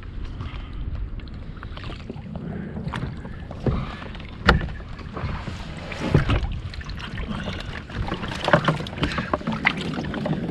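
Pedal-drive fishing kayak under way on the sea: water washing against the hull, with several sharp knocks scattered through it.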